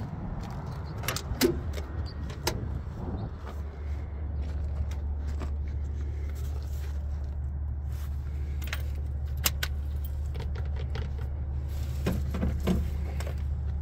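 Keys jangling with scattered clicks and knocks, over a steady low hum.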